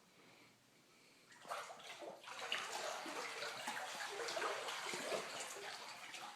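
Floodwater sloshing and splashing around boots as someone wades through it. It starts abruptly about a second and a half in, after a quiet moment, and goes on as an uneven run of splashes.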